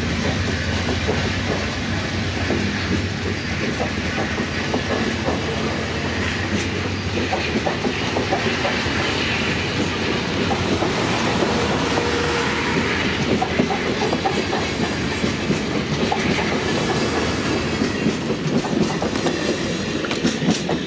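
Amtrak Superliner bi-level passenger cars rolling past close by: a steady rumble of steel wheels on rail with rapid clicking over the rail joints.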